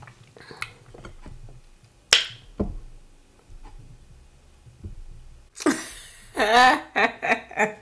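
Soft mouth clicks and lip smacks as the last mouthful of food is finished, with one sharper click about two seconds in. Near the end a woman laughs loudly.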